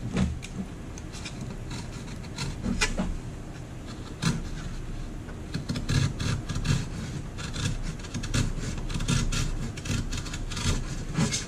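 Sharp knife blade trimming cured fiberglass flush with a foam core, a run of short scraping cuts that come faster in the second half.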